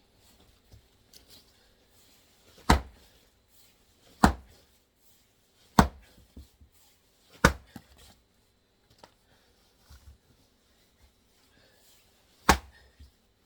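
Five sharp axe strikes into an oak round, about one and a half seconds apart, with a longer pause before the last. The round does not split: it is twisted and has a hidden knot.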